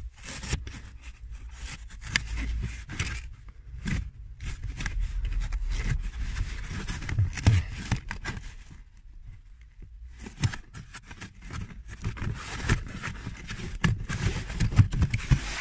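A stiff pressed-felt underdash cover panel being handled and pushed into place. It scrapes and rubs against the plastic trim and carpet, with irregular knocks and clicks and a short lull about two-thirds of the way through.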